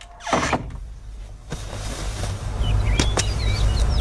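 Slow footsteps on a hard floor, sharp separate steps about a second apart, over a steady low rumble, with a few bird chirps about halfway through.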